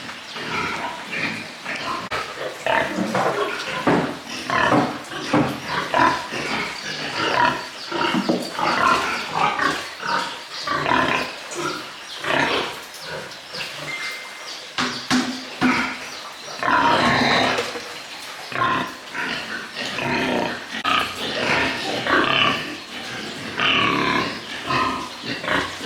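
Pigs grunting and squealing, many short calls one after another, with one longer, louder call about seventeen seconds in.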